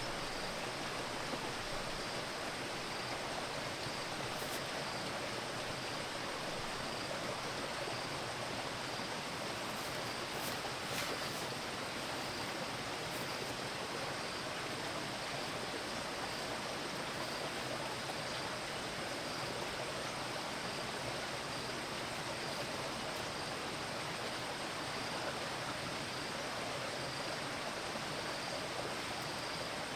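Steady rushing noise of running water, even and unbroken, with a faint high steady tone above it and a few faint clicks about a third of the way in.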